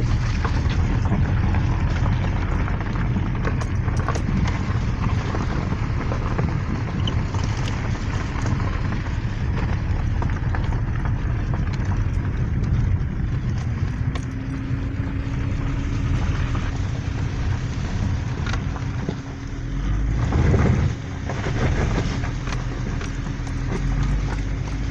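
Car driving on a rough mountain road, heard from inside the cabin: steady tyre and road rumble with many small knocks and rattles. A steady hum joins about halfway through, and there is a brief louder jolt near the end.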